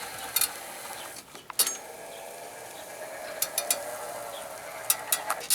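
Homemade electric RC lawn mower's wheelchair drive motors and gears running with a steady whine, with a few sharp mechanical clicks.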